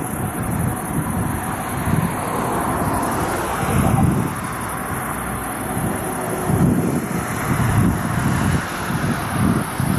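Wind buffeting the microphone in uneven gusts over a steady hiss of distant motorway traffic.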